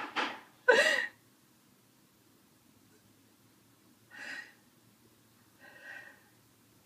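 Short breathy vocal outbursts from a person: two loud ones in the first second, then two fainter ones about four and six seconds in.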